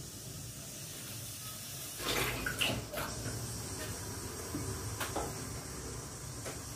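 Cooking oil poured into an aluminium kadai on the gas stove: a splashing pour of about a second, with a few sharp pops a few seconds later.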